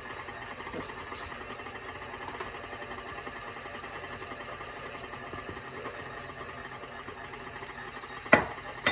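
KitchenAid stand mixer running steadily, its dough hook turning flour and water in the bowl. A sharp knock about eight seconds in is the loudest sound.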